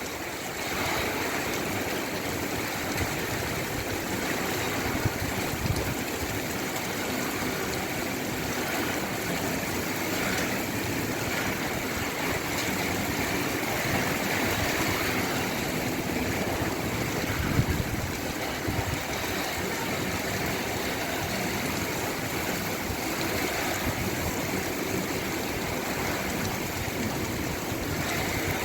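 Torrential rain pouring steadily, a continuous rush of falling and running water.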